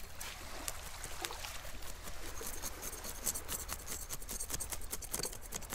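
A knife scraping scales off a fish in many quick short strokes, against small waves lapping at the shoreline.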